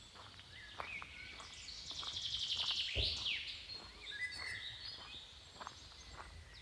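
Birds singing in woodland, loudest in a rapid trill about two to three seconds in that ends in a quick falling note, with a few short whistles. Footsteps crunch on the path underneath.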